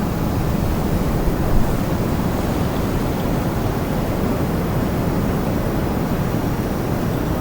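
Strong wind blowing steadily, a deep, even rush with a brief swell about a second and a half in.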